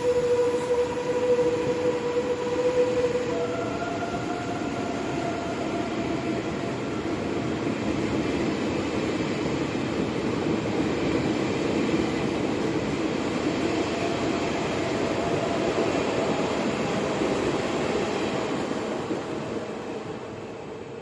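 A train running, with a steady rumble and a steady whine whose pitch steps up about three and a half seconds in. The sound fades away near the end.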